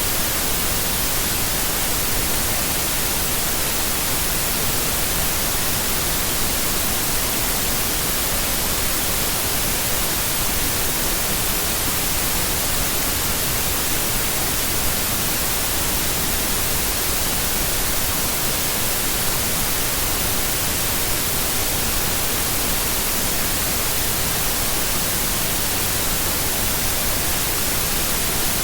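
Steady white noise, an even hiss with no change in level.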